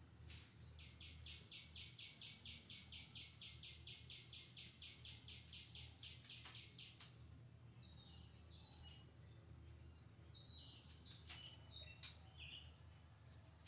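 Faint bird calling: a fast run of about thirty identical high notes, around five a second, lasting some six seconds, then scattered short chirps. Underneath is a low steady hum, and a few sharp clicks stand out near the end.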